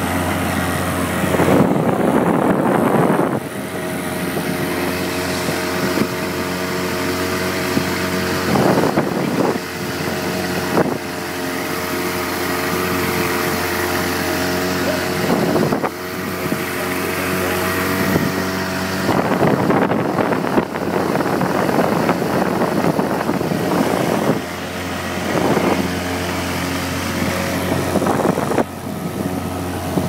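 Small outboard motor running steadily with the boat under way, a constant engine drone with several even tones. Every few seconds it is overlaid by a rush of water and wind noise as the boat moves through the chop.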